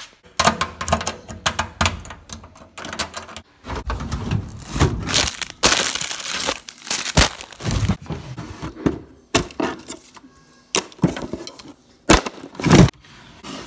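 Household objects clattering and rustling as someone rummages through a drawer, searching for a cable: an irregular run of knocks and scrapes, with a longer rustling stretch in the middle.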